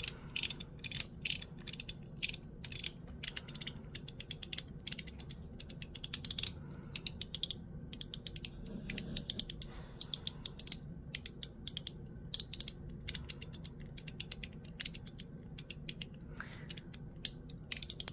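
Mechanical fidget slider worked back and forth by hand, giving quick runs of sharp clicks over and over with short gaps between them.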